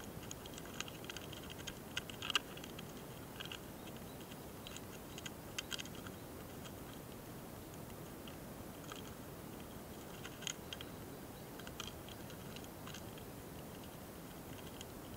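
Faint, irregular little clicks and scratches from a mating pair of small longhorn beetles (hosotora-kamikiri) moving on a branch, over a soft steady hiss; the clicks come in small clusters, busiest in the first six seconds and sparser after.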